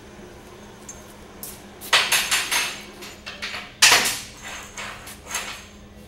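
A few sharp metal-on-metal knocks with short ringing tails as a frozen bronze bushing is worked into a heated steel tube; the loudest comes about four seconds in. A faint steady hum runs underneath.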